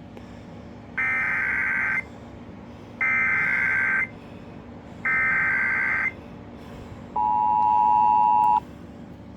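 Emergency Alert System tones: three one-second bursts of SAME data chirps, a second apart, followed by a short two-tone attention signal with a steady low hum underneath.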